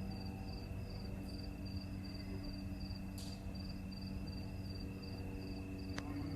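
Insects chirping in an even rhythm, about three chirps a second, over a steady high tone and a low hum.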